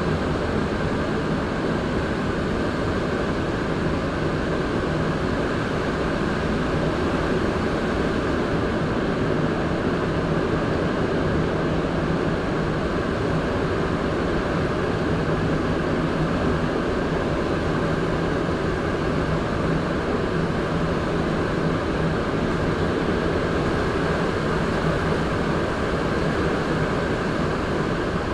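Montreal Metro MR-73 rubber-tyred train running at a steady speed through a tunnel, heard from inside the car: a steady rushing rumble with a faint low hum.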